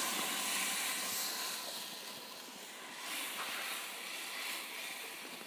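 Hot oil in a kadhai sizzling and hissing as a buttermilk and gram-flour mixture is poured in, the sizzle fading steadily as the liquid cools the oil.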